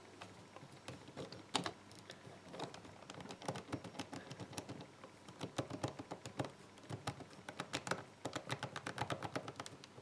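Irregular small plastic clicks and ticks from the 3D-printed combination wheels of a Polish Combination Lock being turned by hand under tension, coming in quicker runs in the second half. This is the wheel feedback being tested for a gate, muddied by heavy friction and play between the inner and outer wheels.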